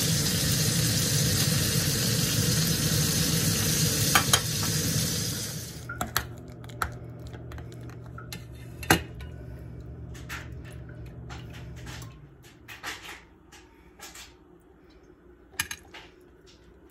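Food frying in a hot pan, a steady sizzle that cuts off abruptly about six seconds in. After that, a metal spoon scrapes in a stainless steel pot and sharp clinks of metal on a plate come one at a time as mashed potatoes are scooped out and served.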